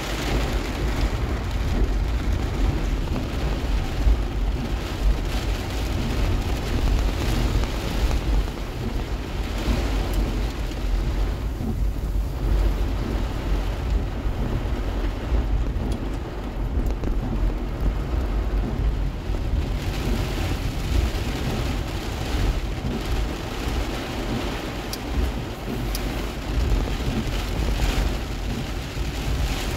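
Heavy rain pounding on a car's windshield and roof, heard from inside the cabin as a dense, steady hiss over a continuous low rumble.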